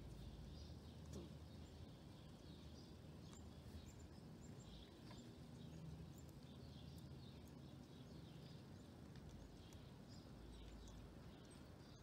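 Faint songbirds chirping, with many short, scattered chirps over a steady low rumble.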